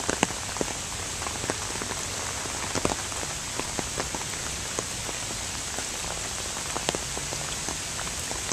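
Steady rain falling, an even hiss with scattered sharper taps of individual drops landing close by.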